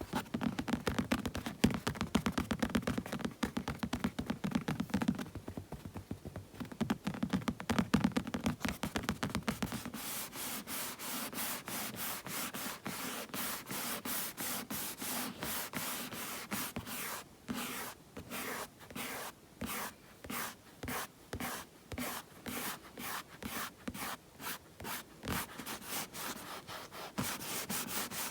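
Hands making sounds: for the first ten seconds or so, quick dense tapping or patting, with a short pause partway. Then the palms rub together in a dry, rasping rhythm, continuous at first and later in separate strokes about two a second.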